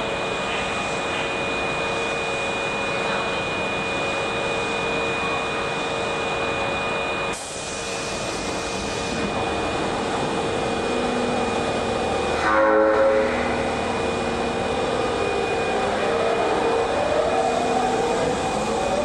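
Osaka Metro 21 series subway train standing at the platform with a steady equipment hum. About two-thirds of the way through it gives a short horn blast, then it pulls away with a rising motor whine as it accelerates.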